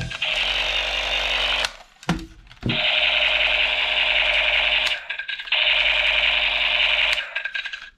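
Battery-powered toy rifle firing its electronic rapid-fire sound effect: a harsh, continuous buzzing noise in three long bursts, broken by short pauses about two seconds in and five seconds in.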